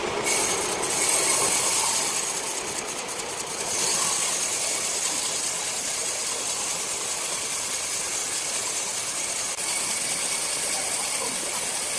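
Large sawmill circular saw running through rosewood, a steady high hiss of the cut with a short dip in level about three seconds in.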